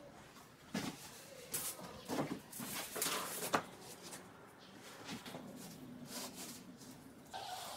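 Handling noises from a large olive-wood slab and a cardboard template being moved about on a wooden deck: several short scrapes and rustles in the first few seconds, then quieter.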